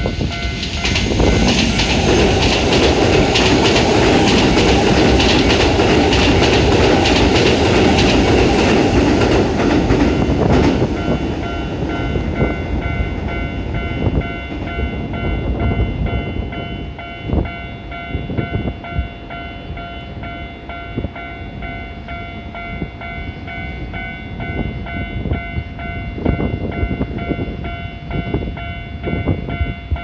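Japanese level-crossing alarm ringing its steady repeating electronic bell throughout, while a Keihan electric train passes with a loud rush of wheel and motor noise for about ten seconds. Lighter clacking of wheels over rail joints follows in the second half.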